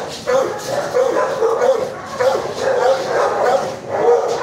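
Shelter dogs barking and yipping, one call over another without a break.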